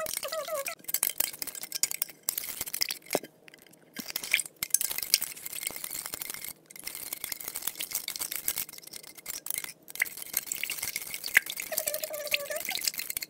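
Metal spoon stirring borax powder into water in a measuring cup: fast, continuous scraping and clinking against the cup's sides and bottom, with a few brief pauses.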